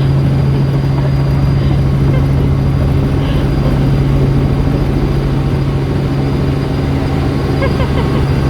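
Helicopter engine and rotor running in flight: a loud, steady drone with a strong low hum.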